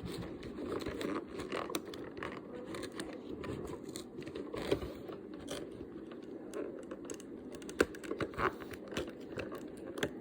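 Packaging being torn open and handled, with irregular crinkling, crackling and a few sharper snaps.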